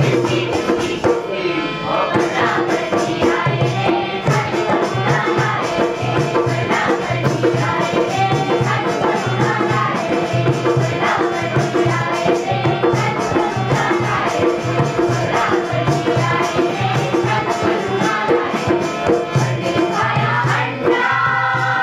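Live folk music: voices singing over a steady drum beat, with rattling, jingling percussion running throughout.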